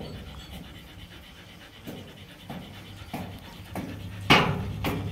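Adult Kanni dog panting, a short breath roughly every half-second, the loudest a little after four seconds in.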